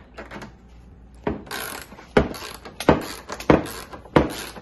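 Hand socket ratchet working a seat-belt mounting bolt loose. After about a second, the strokes come about every two-thirds of a second, each a sharp click followed by a rasp of pawl clicks.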